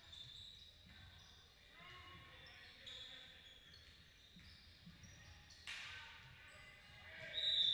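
Sounds of a basketball game on a court: the ball bouncing and sneakers squeaking on the floor in short high-pitched chirps, with a sharp thump about six seconds in and a loud, high squeal near the end.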